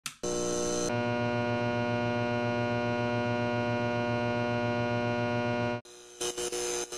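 Neon-sign electrical hum: a steady buzz with many tones and a throbbing low drone, which cuts out almost six seconds in and then sputters in short bursts.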